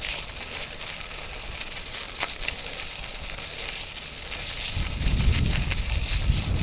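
Bike Friday folding bike's tyres rolling over the trail surface with a steady crackling crunch and a few sharp clicks; from about five seconds in, wind buffets the microphone.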